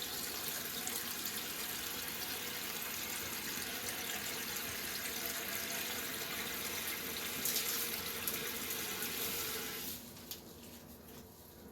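Toilet tank refilling through a newly replaced fill valve: a steady hiss of running water that drops away sharply near the end.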